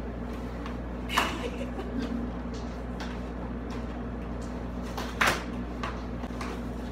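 Two short knocks, about a second in and about five seconds in, with a few lighter clicks, as flat-pack furniture panels and fittings are handled during assembly, over a steady low hum.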